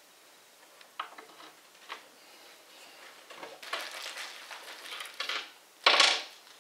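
Two short clicks about a second apart as metal shelf pegs are pushed into the holes of a particleboard bookcase side panel, followed by rustling handling noise with a louder rustle near the end.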